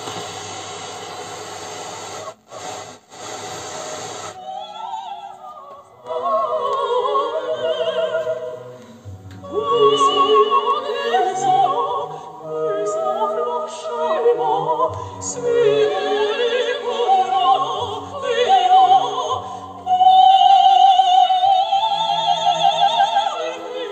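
VEF-214 transistor radio's speaker on the VHF band: a few seconds of hiss while it is being tuned, cut out twice briefly. Then, about four seconds in, an opera broadcast comes in cleanly, with singing full of vibrato over accompaniment.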